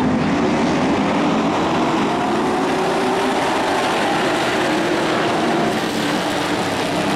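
A pack of dirt-track race trucks running at speed together, their engines blending into one steady, loud noise.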